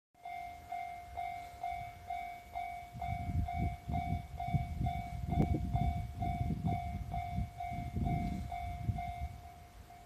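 Japanese railway level crossing warning bell, an electronic ding repeating evenly about twice a second. From about three seconds in a low, uneven rumble joins it and dies away near the end.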